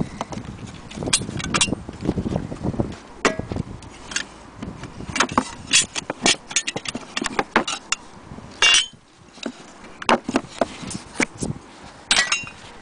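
Irregular taps, clicks and light metallic clinks from handling an antique rosewood vanity box and its metal-lidded fittings, with a denser ringing clink about two-thirds of the way through and another near the end.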